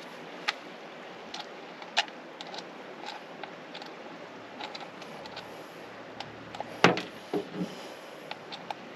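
Plastic clicks and taps from a DJI drone remote controller being handled and set up, with a sharp click about two seconds in and the loudest one about seven seconds in, followed by a few softer knocks.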